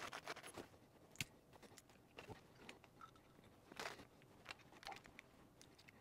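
Scattered faint clicks and rustles of small plastic hose fittings, clips and clear tubing being handled on a wooden workbench, the loudest a brief rustle about four seconds in.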